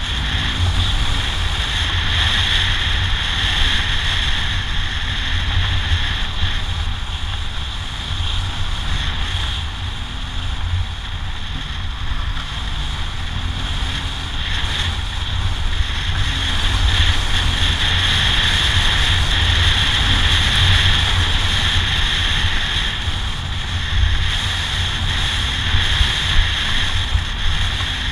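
Wind rushing over a bike-mounted camera's microphone as a BMW R1200GS Adventure rides along a dirt track, with the motorcycle's boxer-twin engine and tyres running underneath in a steady rumble.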